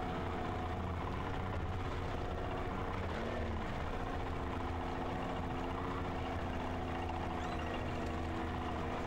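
Inflatable inshore lifeboat's outboard motor idling steadily, a low hum with an even drone over it.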